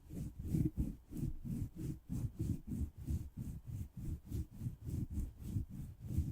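Rhythmic rubbing and brushing strokes against the microphone, about four a second, heavy and muffled.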